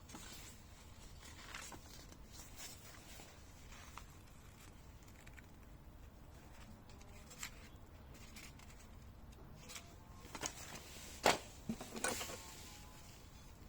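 Handling noises from unpacking a tool box: scattered light clicks and rustles of packaging and parts, with a short cluster of louder knocks and rustling near the end.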